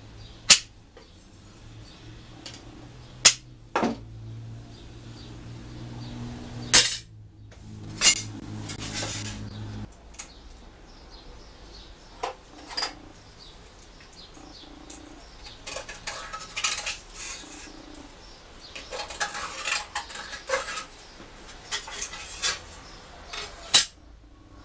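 Thin sheet steel being cut with aviation snips, and metal pieces and tools handled and set down on a steel bench top. The result is scattered sharp metallic clinks and clatters, with a few single loud strikes and denser runs of clatter in the second half.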